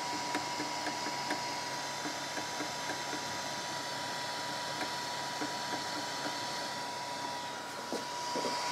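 Renkforce RF100 3D printer running: a steady whir with a constant thin high tone and a few faint ticks.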